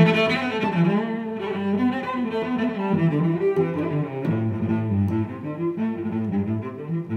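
Instrumental background music with a steady run of changing notes.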